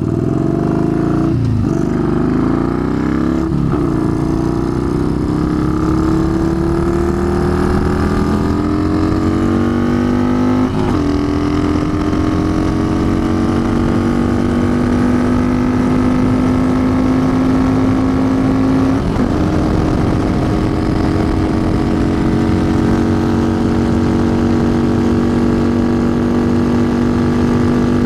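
Yamaha Bolt XV950's air-cooled V-twin through a Vance & Hines exhaust accelerating at full throttle up through the gears. There are four upshifts, each a short dip in pitch, and each climb is slower than the one before. Near the end it is held almost steady flat out in top gear.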